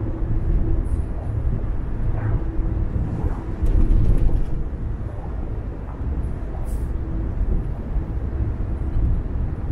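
Steady low rumble of a car being driven along a road, its tyre and engine noise briefly swelling about four seconds in.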